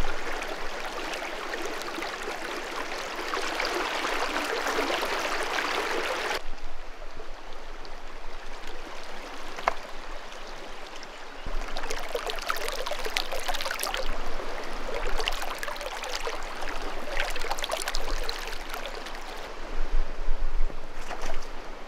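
Shallow river water rushing and gurgling over rocks, picked up close by a hypercardioid shotgun microphone. About six seconds in, the sound changes abruptly to a quieter, nearer gurgling with many small splashes.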